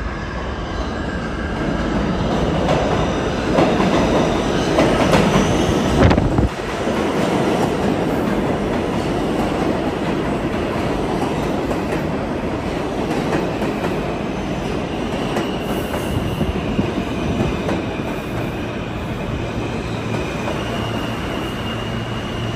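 R160 subway train pulling into an underground station: wheel and rail rumble building as it comes in, with a sharp knock about six seconds in. It then rolls steadily along the platform with high wheel squeal as it slows.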